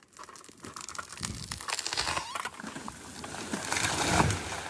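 Wood cracking and splintering: a dense run of crackling snaps that builds to its loudest about four seconds in, then dies away.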